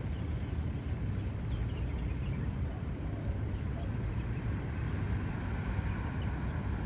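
Street ambience: a steady low traffic rumble with small birds chirping over it.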